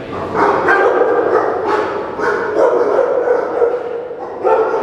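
Many Labradors in kennel cages barking at once, bark over bark, several a second, very loud.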